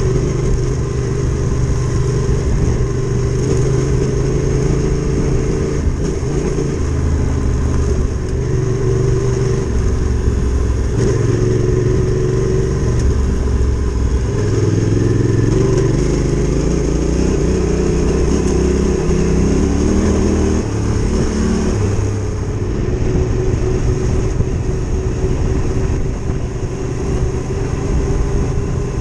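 Adventure motorcycle engine running under way, its pitch rising and dropping several times with the throttle.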